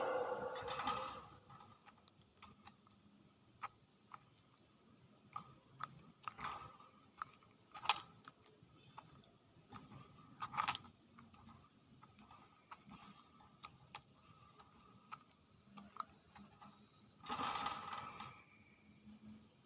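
Hill myna crunching at food, with quiet beak clicks scattered throughout and a short call about seventeen seconds in.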